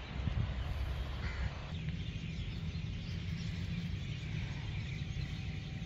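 A crow cawing over a steady low rumble and hiss of open-air ambience.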